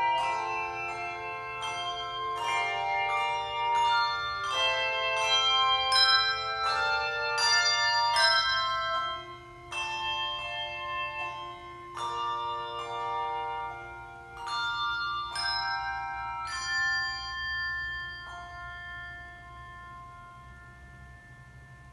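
Handbell choir ringing a piece: bell notes struck singly and in chords, each ringing on. The playing thins out after about halfway, and the last chord, struck about three-quarters of the way through, is left to ring and fade away.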